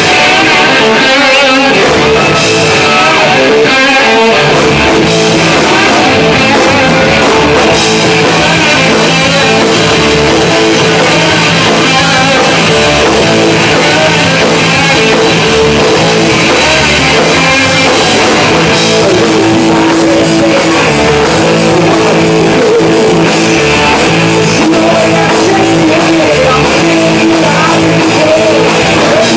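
A rock band playing live and loud, with guitar and drum kit.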